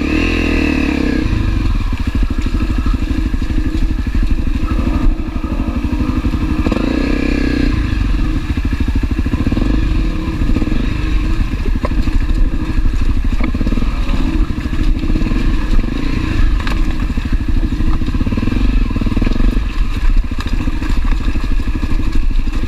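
Honda CRF250L's single-cylinder four-stroke engine running at low speed while the bike rolls along a rough dirt trail. The revs pick up briefly at the start and again about seven seconds in.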